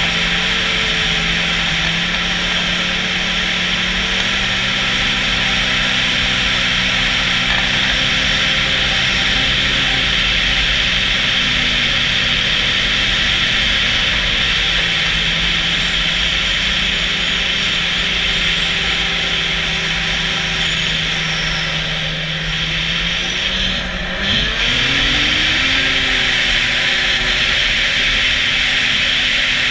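Snowmobile engine running steadily over a constant loud hiss. About three-quarters of the way through the throttle eases briefly, then the engine note climbs again as it picks back up.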